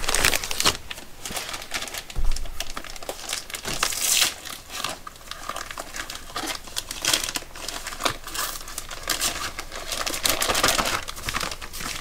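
Clear plastic bag crinkling and crackling irregularly as a pair of gloves is pushed back into it.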